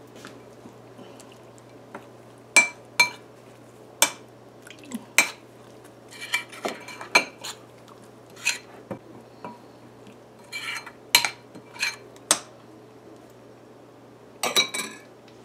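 Metal spoon clinking and scraping against a ceramic bowl while stirring ground spices, garlic and water into a wet curry paste, in irregular sharp strokes that ring briefly.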